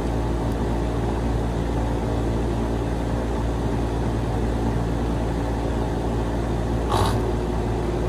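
Steady low mechanical hum. About seven seconds in, a short sharp noise as a Carrier air-conditioner compressor, fitted with a hard start kit, is energised and tries to start, drawing about 102 amps inrush. This points to a mechanical failure; the technician thinks the compressor is shot.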